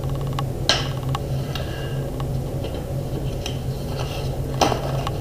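Pencils and a sheet of drawing paper being handled on a drawing board: scattered light taps and clicks, with two sharper knocks, one near the start and one near the end, over a steady low hum.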